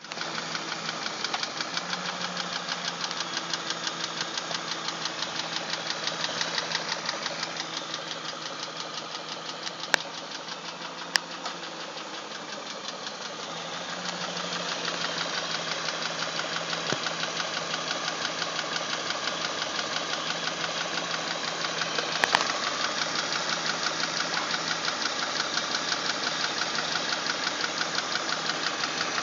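BMW 740i engine idling with a rapid, even ticking that keeps time with the engine, dipping somewhat quieter for a few seconds about a third of the way in. A few sharper single clicks stand out over it.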